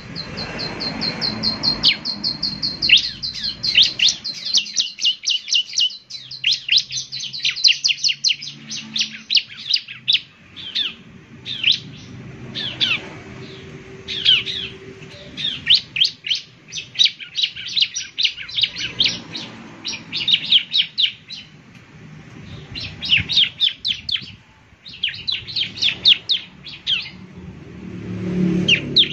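Bar-winged prinia (ciblek) singing: long, very fast runs of sharp, high repeated notes, breaking off into several separate bursts with short pauses between them.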